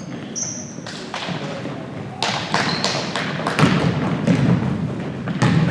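Basketball bouncing and thudding on a gym floor, a run of thuds starting about two seconds in, with a short sneaker squeak near the start.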